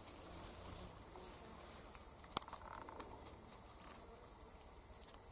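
Faint insects buzzing, with a single sharp click about two and a half seconds in and a softer one shortly after.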